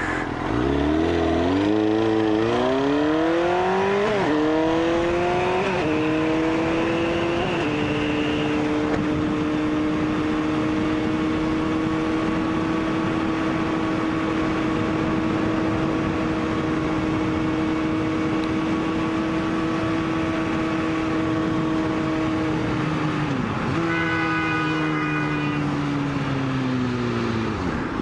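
Sport bike engine pulling away from a stop, revs climbing and dropping back through three quick upshifts in the first eight seconds, then holding a steady cruise with wind rushing past. Near the end the throttle closes and the revs fall as the bike slows, and a car horn sounds briefly.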